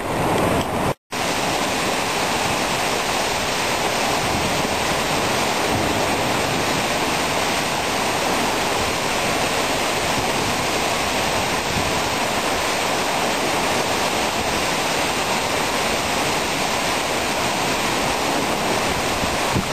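Waterfall plunging from a sea cliff into the ocean: a steady rush of falling and splashing water, after a brief gap about a second in.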